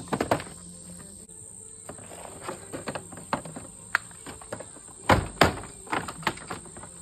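Sharp plastic clicks and knocks of push-pin rivets and ATV body plastics being pried off by hand. The loudest is a close pair about five seconds in. A steady high chirring of crickets runs underneath.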